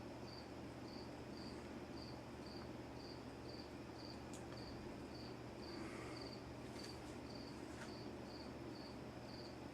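A cricket chirping steadily, about two chirps a second, over a faint low hum of ceiling fans running. A few faint ticks partway through.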